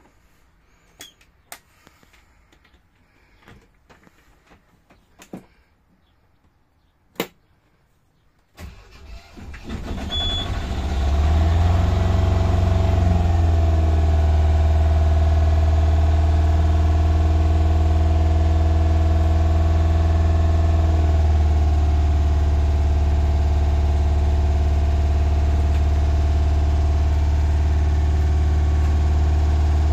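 After a few faint clicks, the 1989 Duchess 29's diesel engine cranks and catches about nine seconds in. It then idles steadily.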